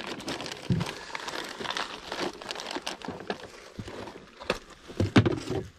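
Plastic packaging crinkling and rustling as it is handled, a dense run of small crackles.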